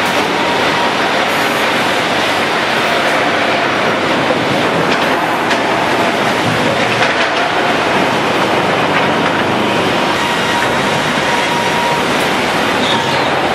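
Sawmill conveyor machinery running with a steady, loud mechanical rumble and rattle, with a few short knocks of boards.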